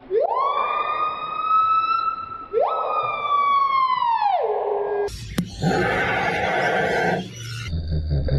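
A siren-like wail sounds twice: each rises steeply and then holds high, and the second slides back down. A sharp click follows, then a few seconds of noisy rasping, then a quick pulsing rhythm near the end.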